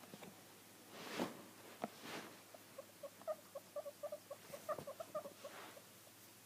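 A small pet animal making a rapid run of short, squeaky chirps, about six a second, lasting some three seconds, after a few soft knocks.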